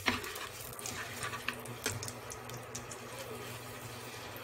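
Metal spoon and spatula stirring and scraping ssamjang paste as it fries in a nonstick frying pan, with several sharp clicks in the first two seconds. A steady low hum from the induction cooktop runs underneath.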